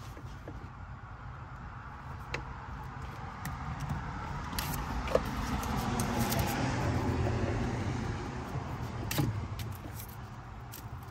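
Yellow NM electrical cable being pulled and its plastic sheath peeled off by hand, with small clicks and crinkling. A vehicle goes by partway through, swelling to a peak about halfway and fading away, over a steady low hum.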